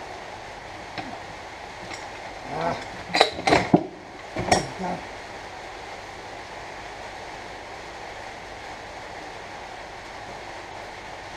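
Metal clanking as the heavy steel stub axle and brake backing plate assembly of a Land Rover Series 2a front axle is lifted off and handled: a quick run of several clanks and knocks a few seconds in, then a steady low hiss.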